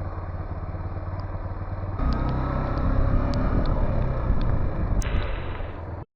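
Motorbike engine and road noise while riding, a steady low running that gets louder about two seconds in, with a few sharp clicks over it. It cuts off suddenly near the end.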